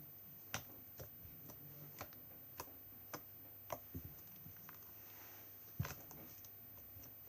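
Homemade glossy slime squeezed and stretched by hand, giving faint, irregular sharp clicks and pops, about one every half second to second. The loudest pop comes near six seconds in.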